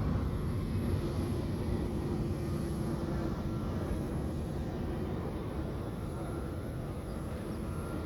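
Airplane engine noise: a steady rumble that slowly fades.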